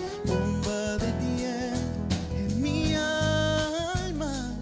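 Live band music with a male voice singing over keyboard, guitar and drums, holding a long wavering note in the second half.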